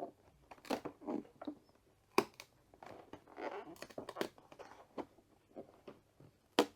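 A cardboard advent calendar door being worked open by hand: scattered clicks, scrapes and short rustles of card, with a sharp snap about two seconds in and another near the end. The door comes free without tearing.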